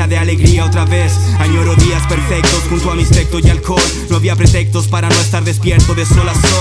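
Hip hop track: a rapper's voice over a beat with drum hits and a heavy held bass line that changes note about two and four seconds in.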